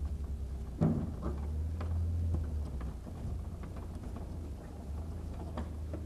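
Faint knocks and ticks of a nut being tightened by hand onto a steel garage door hinge bolt, with one sharper knock about a second in, over a steady low hum.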